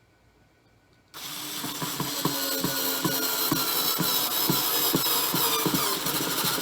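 Power drill driving a screw into a wooden board. It starts about a second in and runs steadily, with a regular clicking about two or three times a second, then stops at the end.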